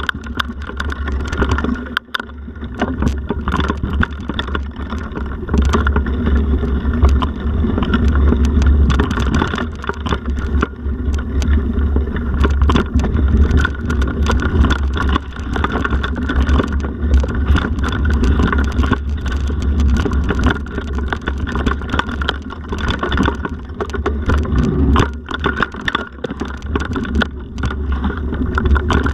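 Riding noise from a mountain bike on a rocky forest trail, picked up by a handlebar camera: a steady wind rumble on the microphone under a constant rattle and clatter of the bike jolting over stones and roots.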